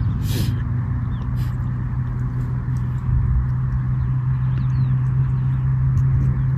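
A steady low engine-like hum runs throughout, with faint bird chirps above it.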